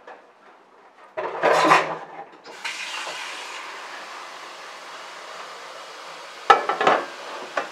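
Kitchen tap turned on and water running steadily, after a short splashy clatter about a second in. Sharp knocks and a rattle of kitchen utensils near the end.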